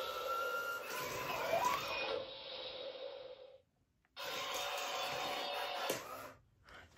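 U-Command Wall-E robot toy playing its electronic sound effects, with a whirring, gliding pitch over a noisy mechanical hum. The sound drops out for about half a second a little past the middle, then resumes and fades near the end.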